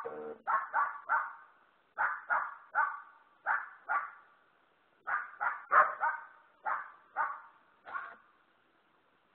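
Dog barking repeatedly in quick clusters of two or three barks, the barking stopping about eight seconds in.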